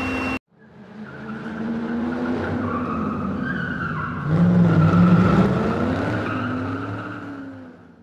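A car sound, an engine with tyre squeal, fading in after a short gap, getting louder about four seconds in, then fading out near the end.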